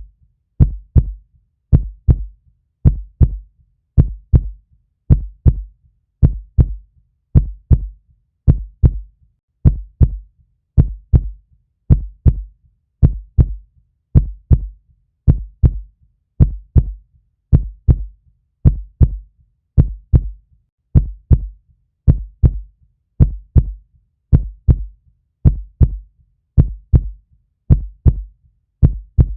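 Heartbeat: a steady lub-dub of two low thumps per beat, about one beat a second.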